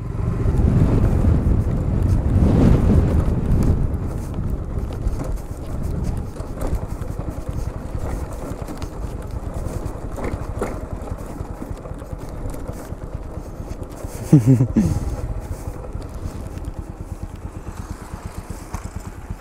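Motorcycle engine running at low speed, louder for the first four seconds or so and then steadier and quieter. A short voice call cuts in about fourteen seconds in.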